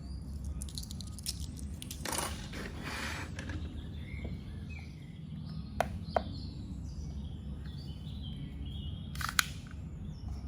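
Faint bird chirps over a steady low background hum, with a brief rustle about two seconds in and a few sharp clicks, two near the middle and one near the end.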